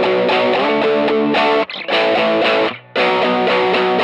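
Overdriven Telecaster-style electric guitar, run through an Archer overdrive pedal into a Fender Blues Junior amp, strumming a simple power-chord progression in the key of B in a steady rhythm. The sound breaks off briefly twice at the chord changes, once past the middle and again about three-quarters through.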